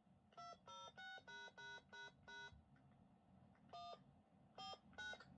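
Faint DTMF keypad tones, sent from a radio keypad as commands to a siren encoder. A quick string of about seven beeps comes first, followed by three more spaced out near the end.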